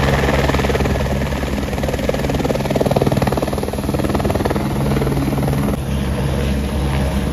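Helicopter running close by: a steady engine and rotor drone with a fast flutter, easing slightly about six seconds in.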